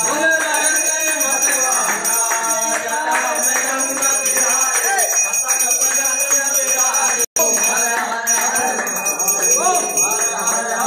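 Temple bells ringing continuously during an aarti, over voices of worshippers singing or chanting together. The sound cuts out for an instant about seven seconds in.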